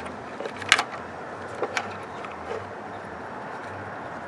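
A few short, sharp clicks and taps over a faint, steady background hum. The loudest comes about a second in. They are the sounds of a test light's probe and clip being handled against metal parts in the engine bay.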